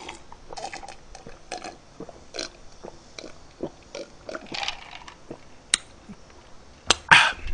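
A man gulping down Fanta orange soda from a glass: a run of soft swallows about two a second, then a short, louder breathy sound near the end.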